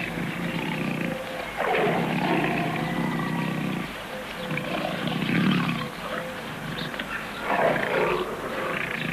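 Tiger growling, with three louder snarls: one about one and a half seconds in, one about five seconds in and one near the end.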